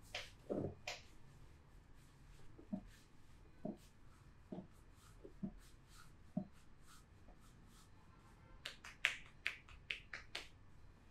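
Massage strokes by hand: a few sharp slaps at the start, soft knocks about once a second, then a quick run of sharper snapping clicks near the end.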